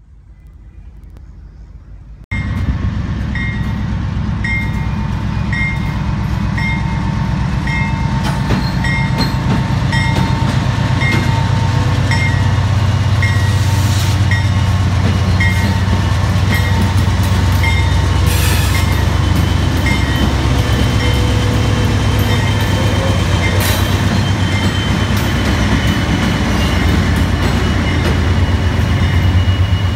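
Union Pacific diesel locomotives hauling a double-stack container train pass close by with a loud, heavy low rumble that starts suddenly about two seconds in. A high ding repeats about every two-thirds of a second until about halfway, and a thin high wheel squeal comes in during the second half.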